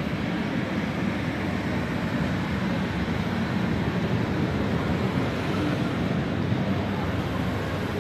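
Steady hubbub of a crowded exhibition hall: many distant voices and footsteps blending into an even wash of noise.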